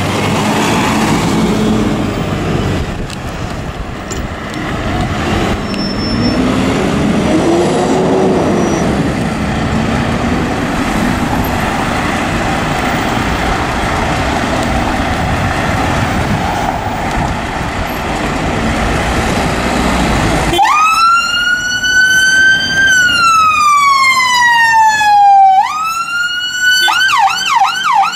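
Volvo FL fire engine pulling away, its diesel engine and road noise making a steady rumble. About twenty seconds in its siren starts in a slow wail that rises, falls and rises again, then switches to a fast yelp near the end as the appliance passes close by.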